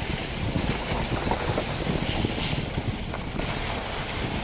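Wind buffeting the phone's microphone as a fluttering low rumble, with a steady high-pitched hiss over it that briefly drops out a little after three seconds in.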